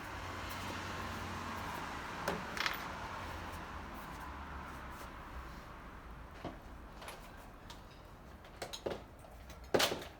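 A few separate knocks and clunks of objects being handled on a workbench, the loudest just before the end, over a faint hiss and hum that slowly fade.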